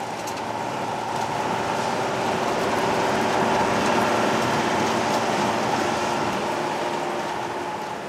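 Matrot M41 Electronic self-propelled sugar beet harvester running as it lifts beet, its air-cooled six-cylinder Deutz engine and machinery humming steadily. It grows louder towards the middle and eases off again as the machine passes.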